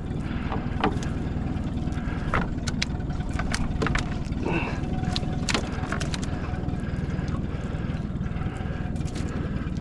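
Boat's outboard motor idling steadily, with scattered sharp clicks and taps over it and a short high squeak about halfway through.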